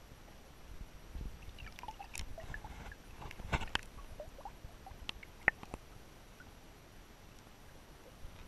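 Faint underwater sound picked up through a GoPro's waterproof housing: low water noise with scattered clicks and knocks, the sharpest a single click about five and a half seconds in, then quieter.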